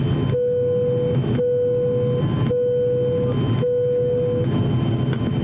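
Steady drone of the ATR42-600's twin turboprop engines, heard from inside the cabin while taxiing. Over it come four short, steady, mid-pitched beeps about a second apart, ending a little before the last second.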